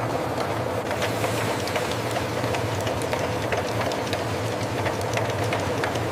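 Factory processing machinery running: a steady low hum with many small, irregular clicks and rattles over it.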